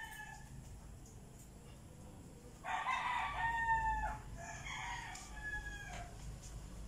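Roosters crowing: the tail of one crow at the start, then a loud crow about three seconds in and a second, quieter crow right after it.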